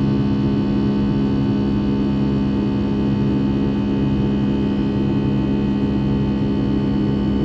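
Steady hum of a Boeing 757-200's Rolls-Royce RB211 jet engines heard inside the cabin, several constant tones over a low rumble, with no change in pitch or level.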